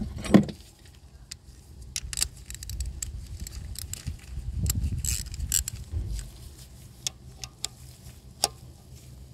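Scattered metallic clicks and clinks of a 14 mm hand tool being picked up and fitted against the fuel line and injector fittings. A low steady hum runs underneath.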